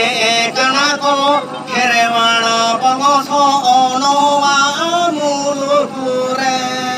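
A man singing a Santali song into a microphone, his voice amplified, with wavering, ornamented pitch and held notes near the end.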